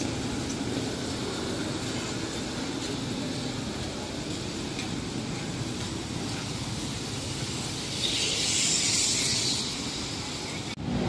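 Night traffic on a wet city street: a steady low rumble of vehicles with tyre hiss on the wet road, and a louder hiss for about two seconds near the end as a vehicle goes by.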